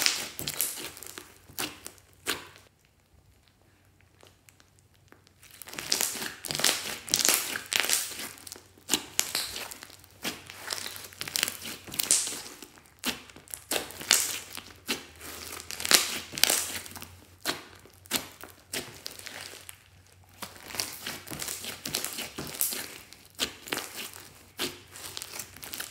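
Hands squeezing and kneading a thick pink slime with small coloured beads mixed in. It makes a rapid, irregular run of sharp crackles, pops and squelches as air pockets burst, with a pause of about three seconds near the start.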